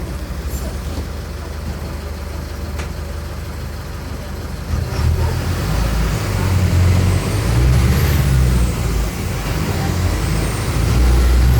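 Mercedes-Benz OM-904LA four-cylinder turbodiesel bus engine running steadily, then from about five seconds in getting louder as it pulls under load, a high whine rising with the revs, easing off briefly near the middle and rising again, as through a gear change.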